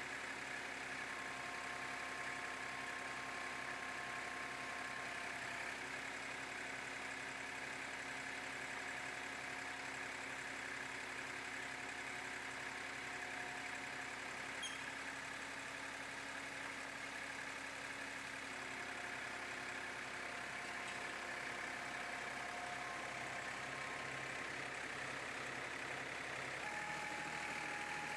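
Massey Ferguson 2605 tractor's diesel engine running steadily at low revs, its note shifting slightly near the end.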